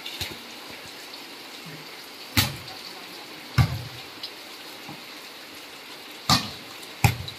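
A wet volleyball struck four times by players' hands during a rally, sharp slaps a second or more apart, over the steady hiss of heavy rain falling on a concrete court.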